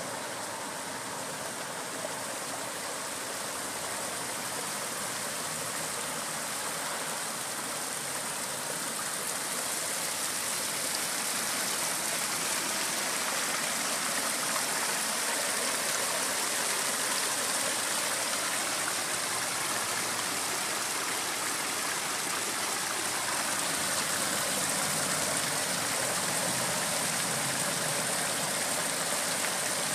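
Pondless backyard waterfall: water spilling steadily over stacked stones in small cascades. It grows louder over the first ten seconds or so, then runs evenly.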